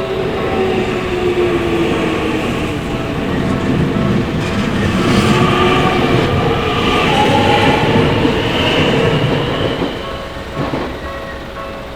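A Tokyu Tamagawa Line electric train passes over a level crossing. It makes a loud rumble of wheels with clacking over the rail joints, and an electric motor whine that glides in pitch. The rumble swells and fades after about ten seconds. The crossing's warning bell rings repeatedly, heard plainly at the start and again near the end.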